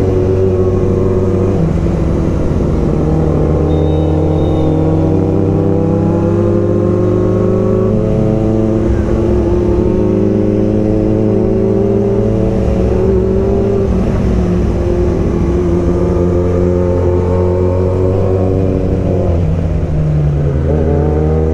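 Kawasaki Z900's inline-four engine and exhaust running loud and steady at low speed in traffic, heard from the saddle, its pitch rising and falling gently with the throttle.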